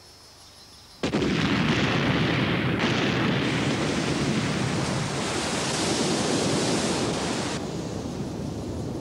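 Cartoon explosion sound effect: a sudden blast about a second in, then a long rumbling noise that carries on to the end.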